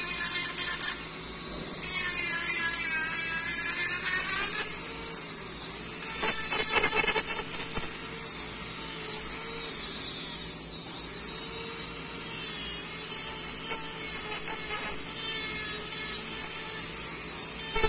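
Dental lab micromotor handpiece whining at high speed as its bur grinds and trims the acrylic of an upper retainer, in spells of several seconds with short lulls between. The pitch dips and recovers as the bur bites into the acrylic.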